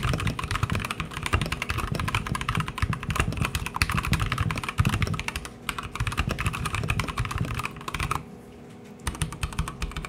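Rapid typing on a Keychron K2 mechanical keyboard with Gateron switches: a dense run of keystroke clacks that stops briefly about eight seconds in, then picks up again.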